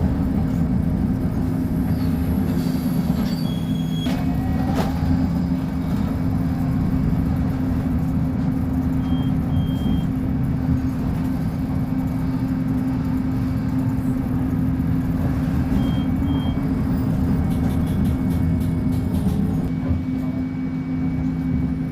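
Volkswagen 17-280 OT bus engine running at a steady speed, a constant drone with no revving. Short high beeps sound in pairs about nine and sixteen seconds in.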